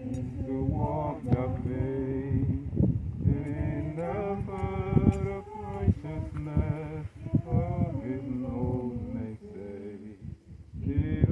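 A man singing, with no instruments, dropping away briefly near the end.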